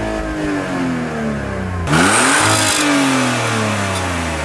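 Car engine free-revving in park: the revs fall away after a blip, climb sharply again about two seconds in, then sink slowly back down.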